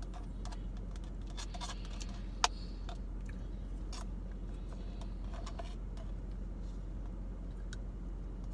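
A plastic spoon scraping and clicking in a cup of red beans and rice, as scattered light clicks with one sharper click about two and a half seconds in.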